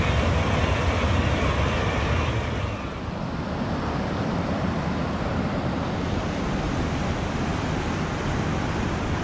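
Rushing river water spilling over a low weir and churning through a rocky channel: a steady loud rush that shifts in tone about three seconds in.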